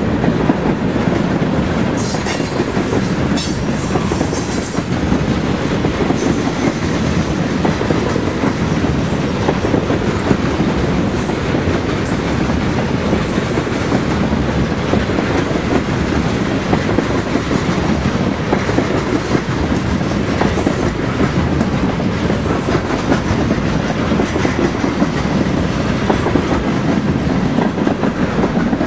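Loaded freight cars (boxcars and tank cars) rolling past close by: a steady noise of steel wheels on the rails that keeps the same loudness throughout.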